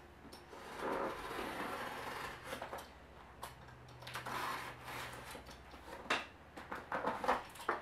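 Fingernails scratching and rubbing at the packing tape and cardboard of a shipping box, in rasping stretches, with a few light clicks near the end.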